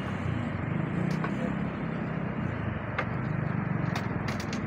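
Diesel locomotive of a goods train approaching, its engine running with a steady low drone, with a few sharp clicks near the end.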